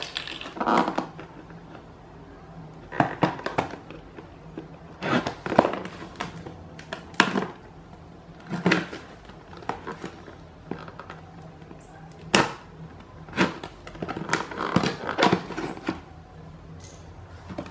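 Cardboard product box being handled on a tiled floor: irregular rustles, scrapes and knocks every second or two as it is moved, turned and the seal on its flap is picked at.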